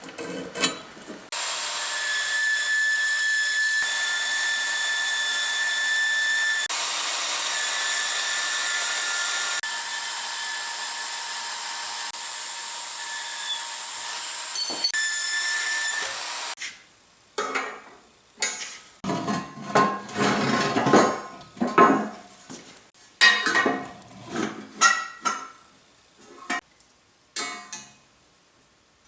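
Power tool cutting steel angle iron: a steady high whine for about fifteen seconds that stops suddenly, followed by a series of short, uneven cutting bursts.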